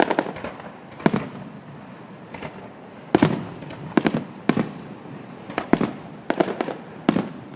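Fireworks going off: about a dozen sharp bangs at uneven intervals, several in quick pairs, with a lull of about two seconds after the first few.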